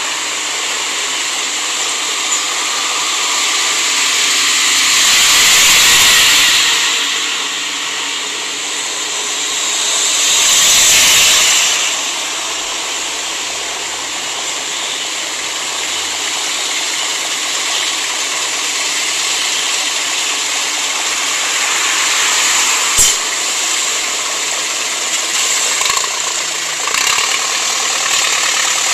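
Road traffic: a steady hiss of vehicles and idling engines, with two vehicles swelling past and fading in the first half, and a single sharp knock later on.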